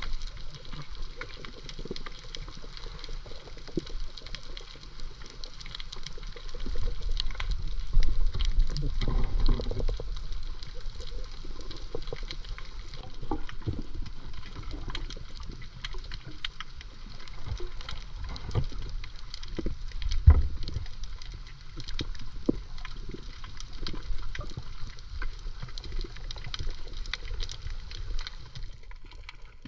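Water sloshing and bubbling close to the microphone, with a steady crackle of small clicks throughout. The sound swells about eight seconds in, and there is a single sharp knock about twenty seconds in.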